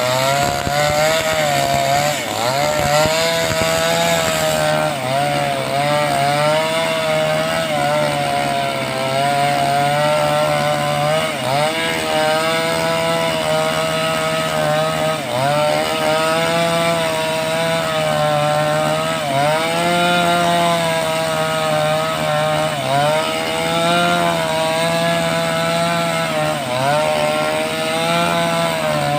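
A 5800-type two-stroke chainsaw with a 22-inch bar running at high revs while ripping a teak log lengthwise. Its engine pitch sags and recovers again and again as the chain bites into the wood.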